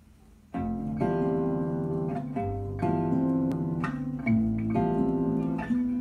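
Guitar music played from a vinyl record on a Technics SL-1200MK2 turntable. A faint hum comes first, and the music starts about half a second in with clearly picked notes.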